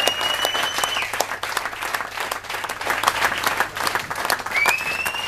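Audience applauding a live band at the close of a concert, dense steady clapping, with a long high whistle near the start and another near the end.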